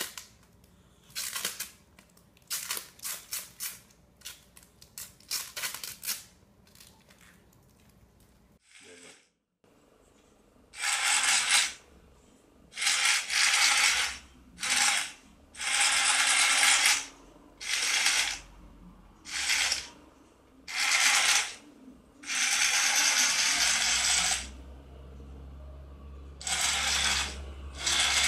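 Sharp clicks in quick clusters, then a remote-control toy spider's small geared motor whirring in about ten short bursts as it is driven back and forth.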